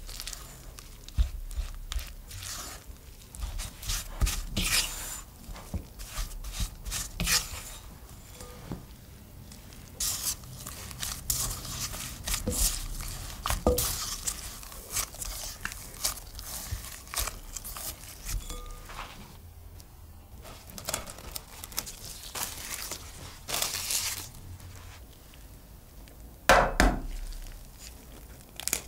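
Dough being mixed in a glass bowl with a spatula and then kneaded by gloved hands: scattered scrapes and taps of the spatula against the glass and soft squishing of the dough. A louder knock comes near the end.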